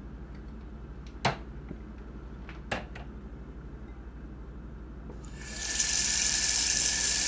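Two sharp knocks as a drinking glass is handled, then about five seconds in a kitchen faucet starts running in a steady stream, filling the glass.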